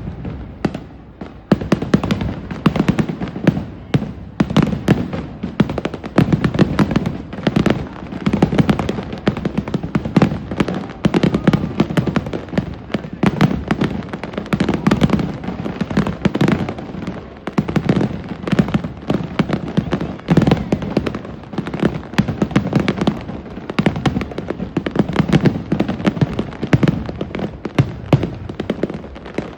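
Aerial fireworks display in a dense, continuous barrage: many booms and crackling bursts a second, the loudness swelling and falling every second or two.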